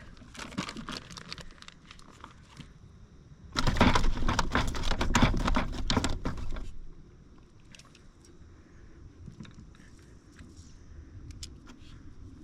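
A loud stretch of clattering and rustling lasting about three seconds, starting about three and a half seconds in, with lighter scattered clicks and rattles before and after.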